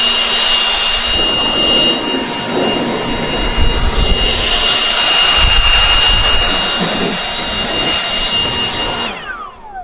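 Bandsaw sawmill running at speed with a steady high whine, then winding down about nine seconds in, its pitch falling away.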